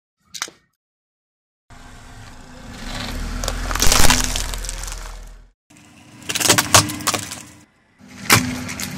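A car tyre rolling slowly over objects on asphalt and crushing them, in short clips that start and stop abruptly. First a snack packet crackles and crunches under the tyre, loudest about four seconds in. Then plastic toys crack and snap with several sharp cracks. A single small click comes near the start.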